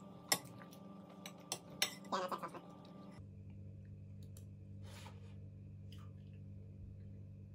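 A few sharp clinks of a metal spoon against dishes at the table, two of them loud, then a steady low hum with a couple of faint ticks.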